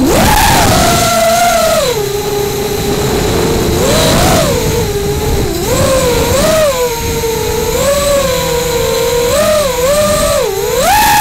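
The four 2205 brushless motors and 5045 tri-blade propellers of a 220 mm FPV racing quadcopter, heard from the onboard camera. The loud whine drops in pitch about two seconds in and holds there. It then wavers up and down with quick throttle changes and climbs high again near the end.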